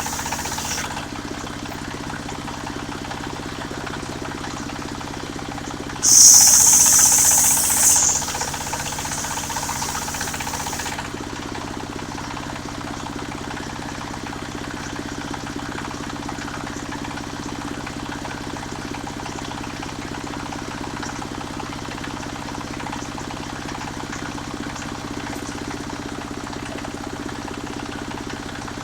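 Engine of a mobile circular sawmill running steadily. About six seconds in the spinning blade bites into jackfruit wood with a sudden, loud, high-pitched cutting sound that eases off and stops about five seconds later, while the engine runs on.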